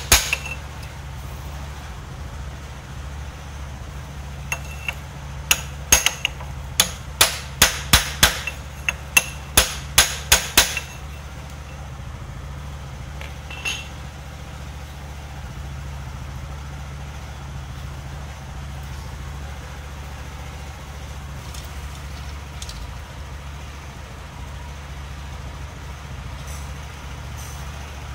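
A run of sharp hammer taps, about two to three a second, on a pipe held over a shaft in a motorcycle engine crankcase to drive a part into place. They stop about halfway through, leaving a steady low hum.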